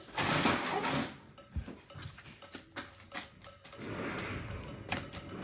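Trading cards being handled: a rustling slide in the first second, scattered light clicks and taps, then a longer rustle near the end.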